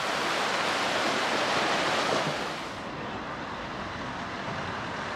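Sea waves washing onto the shore: a loud rush that swells and then falls away about three seconds in, leaving a quieter steady hiss.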